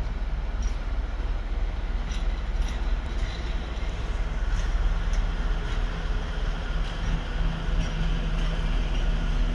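Shunting diesel locomotive's engine running with a steady low rumble as it moves slowly with a rake of passenger coaches, with scattered faint clicks.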